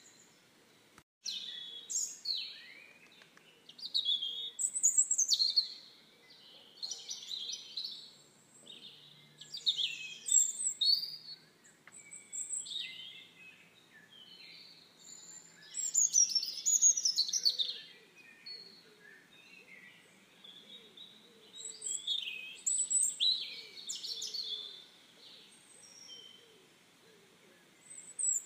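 Songbirds singing, with several birds' quick high chirps and trilled phrases overlapping in bursts every second or two. The sound cuts out briefly about a second in.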